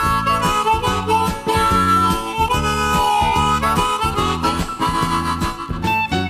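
Instrumental intro of an anime character song. A harmonica carries the melody over a rhythmic bass and backing band, with no vocals yet.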